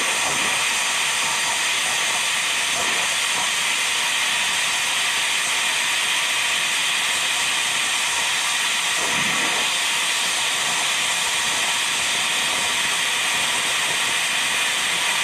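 Plasma 65 plasma cutter cutting through a thick steel cutting-edge blade: the arc and air jet make a steady, unbroken hiss.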